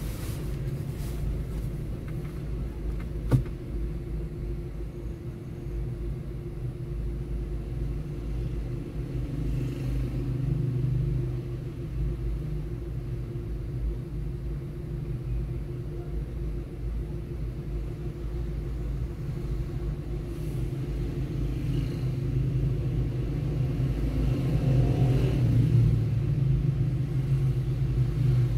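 Steady low rumble of an idling car engine and nearby traffic, heard from inside a car stopped in a traffic queue, with one sharp click about three seconds in. The rumble swells louder twice, around ten and twenty-five seconds in.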